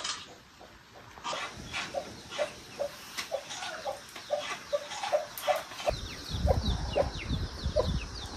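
Chickens clucking in short repeated notes, two or three a second, with quick high falling chirps joining from about five seconds in. A low rumble comes in near the end.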